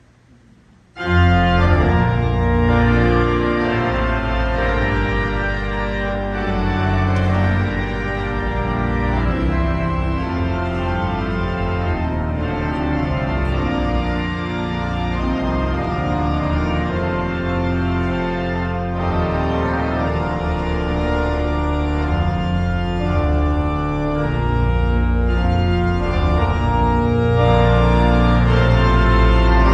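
The W. W. Kimball pipe organ, with about 8,000 pipes, playing loud sustained chords over a deep bass; it comes in suddenly about a second in.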